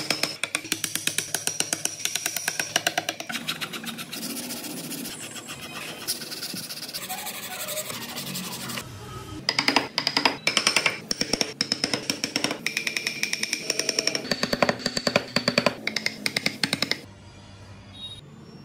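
Background music with a fast, steady drum beat. It cuts off about three-quarters of the way through, leaving faint workshop noise with a single knock.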